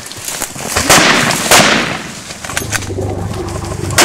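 Heavy hunting rifle shots: two very loud shots about half a second apart a second in, each trailing off, and another sharp shot near the end.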